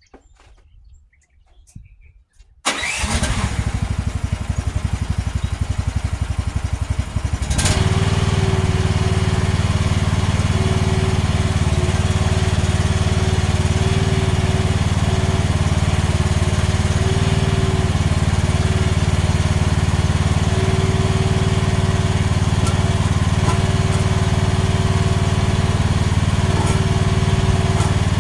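AGT H13R mini excavator's engine starting about two and a half seconds in and running unevenly at first. About five seconds later it steps up louder and settles into a steady run for the rest of the time.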